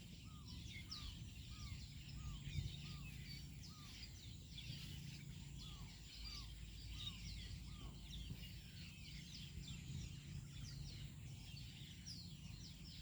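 Birds chirping: many quick, high chirps throughout, with a lower short call repeated about three times a second for the first eight seconds. A faint low rumble runs underneath.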